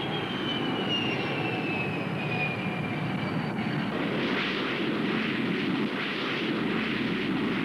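Jet aircraft engine: a high whine falling steadily in pitch over the engine's steady noise, giving way about four seconds in to a louder, rushing roar.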